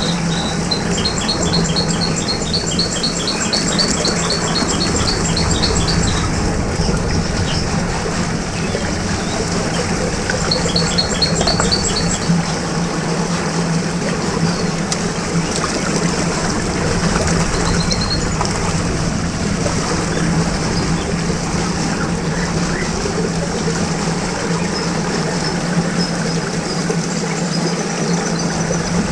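Steady rushing of churning whirlpool water over a steady low hum, with birds chirping in short rapid trills now and then.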